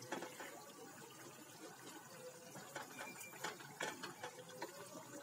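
Wooden spoon stirring thick chicken curry in a steel pot: faint, irregular scraping and soft knocks of the spoon against the pot, over the wet squelch of the gravy.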